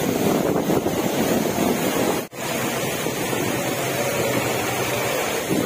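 Heavy rain pouring down in strong, gusting wind: a steady rush of rain and wind. The sound drops out for an instant about two seconds in.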